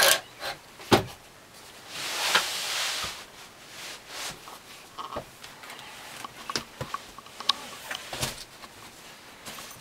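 Wooden fold-out couch frame being pulled out into a bed: a few sharp wooden knocks and clunks, the loudest about a second in, a scraping slide of wood and cushion about two seconds in, then scattered lighter knocks and rustling as the cushions are set in place.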